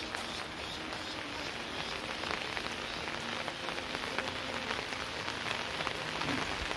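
Steady rain falling, an even hiss with small scattered drips.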